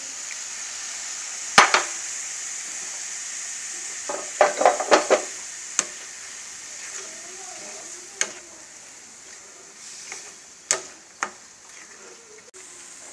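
Coconut, green gram and melted jaggery sizzling in a pan while being stirred with a wooden spatula, with a steady hiss and a few sharp knocks of the spatula against the pan, a quick cluster of them about four seconds in.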